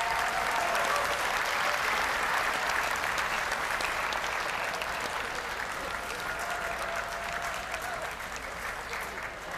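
Audience applauding steadily, the clapping slowly dying down toward the end.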